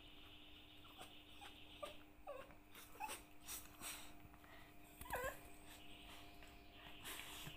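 Faint, high-pitched whimpering cries from a small animal: a string of short cries that bend up and down in pitch, spaced roughly half a second to a second apart, with one louder cry about five seconds in.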